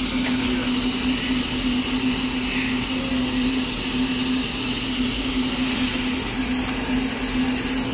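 Heisler geared steam locomotive standing with steam up, giving a steady hiss over a constant low hum, with no exhaust beats.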